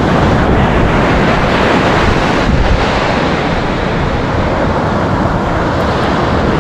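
Wind buffeting the microphone over steady surf breaking on the shore.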